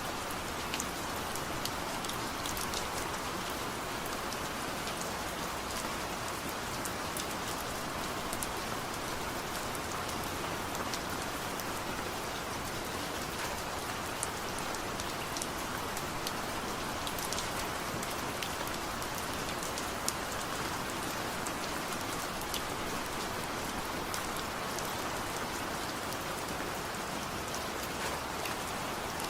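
Steady rain falling, with many individual drops pattering on a surface and no thunder.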